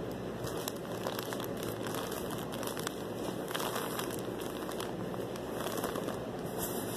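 Plastic poly mailer bag crinkling and rustling as it is handled, with many small irregular crackles.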